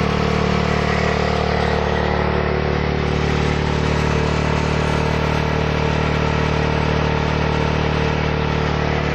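Junoon motorcycle's engine running steadily at constant revs while its rear tyre drives a small water pump.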